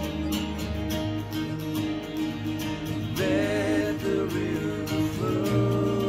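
Worship song played on a strummed twelve-string acoustic guitar. A voice sings long wavering notes about three seconds in and again near the end.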